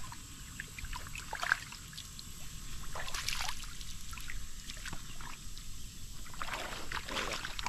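Shallow river water sloshing and splashing around hands and wading feet as a small fish is let go, in a few short bursts, the longest near the end.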